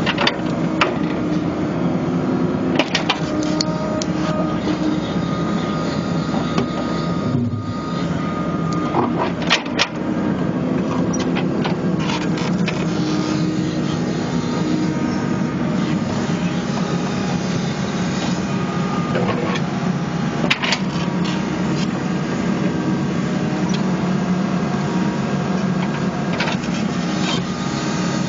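New Holland Kobelco E80B midi excavator's diesel engine running steadily under digging load with a hydraulic whine, broken by scattered clanks and knocks as the bucket digs into and drops soil.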